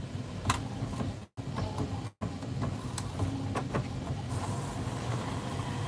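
Epson WorkForce wide-format inkjet printer running with a low mechanical hum and a few clicks as it feeds paper and moves the print head to print a nozzle check pattern.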